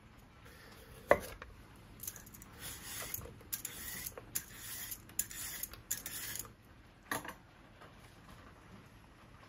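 A kitchen knife chops the leaf end off a carrot onto a wooden cutting board with one sharp knock, the loudest sound. A peeler then scrapes the skin off the carrot in a run of quick strokes for about four seconds, and another knock follows near the end.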